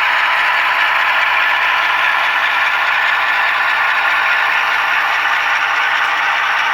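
HO scale GE ES44AC model locomotive running on the track, a steady noise with little bass, as from the sound-equipped model's small onboard speaker together with its running gear.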